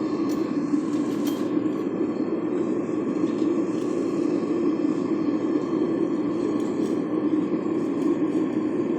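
Homemade aluminum-melting furnace running with a loud, steady rushing noise. There are a couple of faint clicks in the first second or so.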